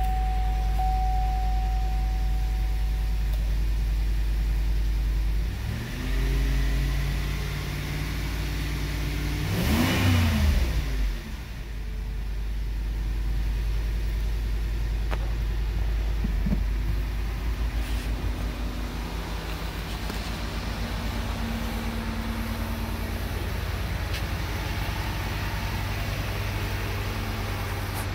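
A 2006 Cadillac DTS's 4.6-litre Northstar V8 idling steadily. Its speed rises about six seconds in, it is revved once quickly about ten seconds in, and then it drops back to a steady idle.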